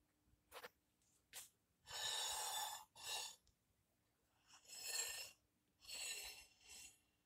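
A person breathing softly close to the microphone: five short breaths in and out after two faint clicks near the start.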